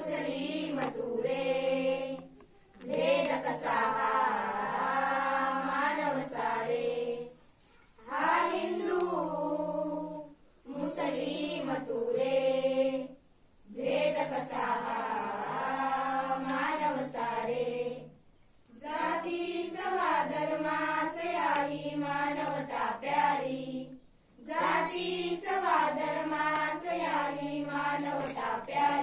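A group of schoolgirls singing an awareness song (prabodhan geet) together. The song comes in sung phrases of a few seconds, broken by short pauses for breath, about six times.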